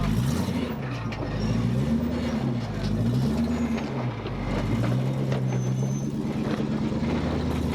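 Rock-crawling Jeep's engine revving up and down several times under throttle as it climbs over boulders, then holding a steady speed for the last couple of seconds.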